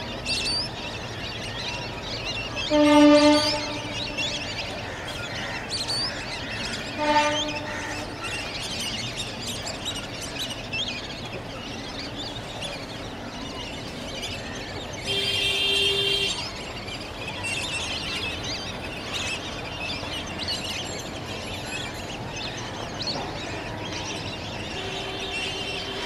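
A flock of lesser whistling ducks keeps up a steady chatter of thin, high whistling calls. A train horn cuts in loudly twice, about four seconds apart, and a shorter horn tone follows near the middle.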